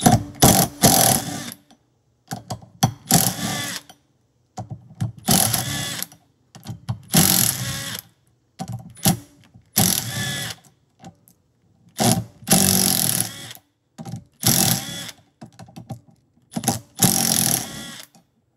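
Cordless impact driver with a 14 mm socket running out the Loctited bolts that hold the ring gear to a Can-Am Smart-Lock front differential hub. It runs in about eight short bursts of a second or two, one bolt after another, with brief pauses between.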